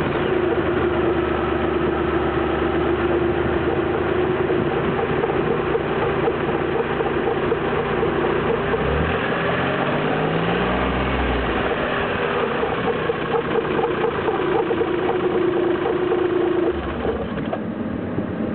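Turbocharged Geo Metro engine running with the air filter removed, the Garrett T25 turbo's compressor wheel spinning at the open inlet and the electric radiator fan running. The pitch rises and falls around the middle, and the sound drops off a little near the end.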